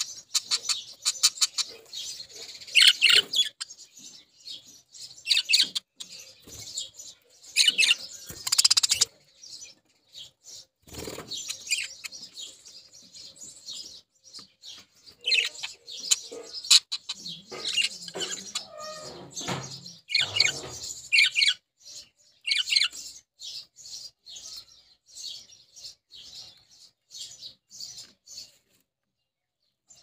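House sparrows chirping: quick runs of short, high chirps in irregular bursts with brief pauses between them.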